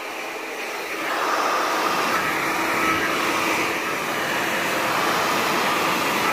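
Handheld hair dryer blowing steadily, getting louder about a second in, with a round bristle brush being pulled through the hair.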